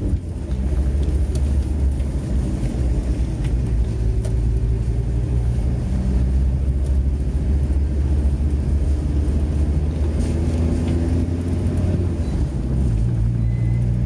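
VW T4 Transporter van driving, heard from inside the cab: a steady engine and road drone, with a few faint rattles from the van.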